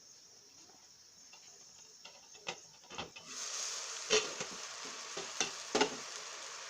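Pork and chicken sizzling in hot oil in a pot while a spatula stirs them, knocking against the pot several times. The sizzle grows louder about three seconds in.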